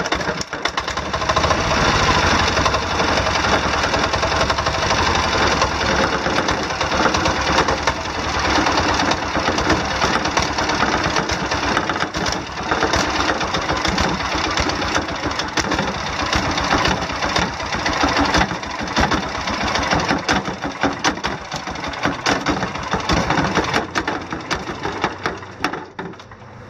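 Brand-new 10 hp Yanmar-clone single-cylinder air-cooled diesel engine running with a rapid, even knock, idled all the way down with the fuel cut off and slowly running on, its sound fading near the end as it dies. It is hard to kill because the throttle set screw keeps the throttle from reaching the off position.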